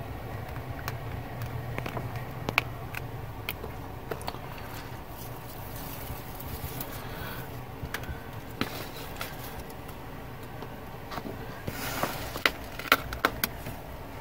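Small clicks and taps of hands pressing an adhesive LED light strip into place along wooden trim, with a cluster of sharper clicks and a brief rustle near the end. A low steady hum runs underneath.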